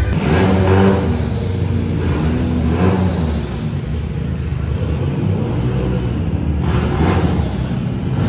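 A car engine revving, its pitch rising and falling, with sharper surges of revs about three seconds in and again near the end.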